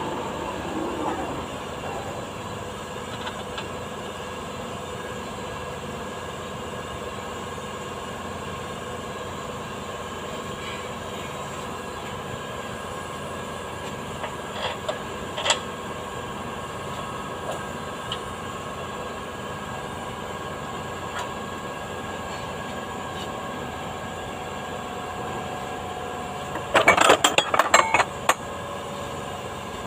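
Steady machine hum in a car repair shop, with a few light metal clinks midway. Near the end comes a short burst of loud metallic clattering as steel hand tools, a socket wrench and extension, are picked up and knocked together.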